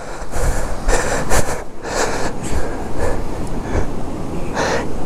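A person breathing hard in ragged gasps, roughly one a second, over a low rumble.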